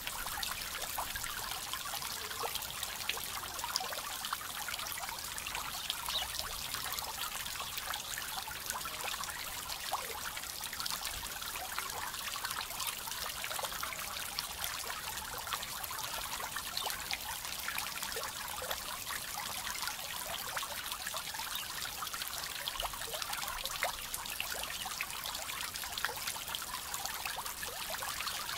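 Small garden pond fountain: its spray of water falling back onto the pond surface, a steady, even splashing of many drops.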